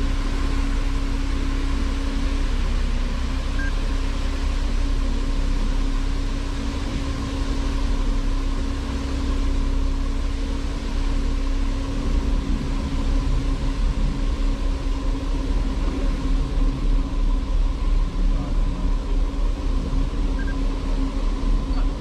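Cruise boat's engines running steadily: a low rumble with a steady hum over a wash of noise. From about halfway the level starts pulsing about twice a second.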